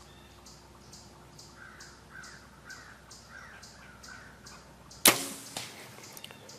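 A bow shot about five seconds in: a sharp snap as the string is released, with a smaller knock about half a second later. Before it there are only faint repeated bird chirps and insect ticking.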